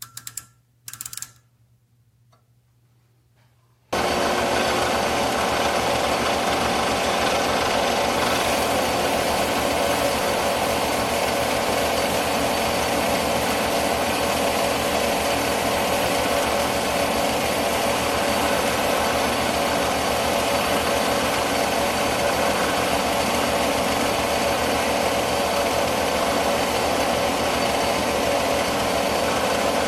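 Two short clicking rattles in the first second, then about four seconds in a metal lathe starts and runs steadily, its drive whining, as a lathe tool takes a cleanup cut on a small steel stud.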